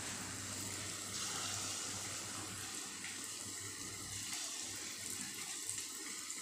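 Sweet wheat-flour and jaggery bhajiya batter deep-frying in hot oil in an aluminium kadai: a steady sizzle of bubbling oil as small dollops of batter are dropped in by hand.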